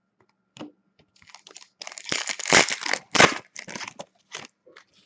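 Hockey card pack's wrapper being torn open and crumpled in the hands: a dense burst of crinkling about two to three and a half seconds in, with lighter scattered crackles before and after.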